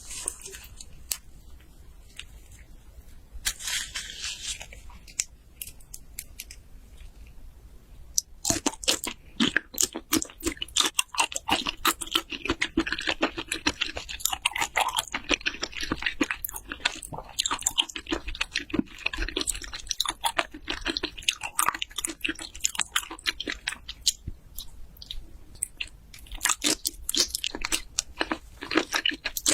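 Close-miked chewing of raw salmon and raw shrimp: soft and sparse at first, with a short hissing noise near four seconds, then dense, continuous wet clicks from about eight seconds in.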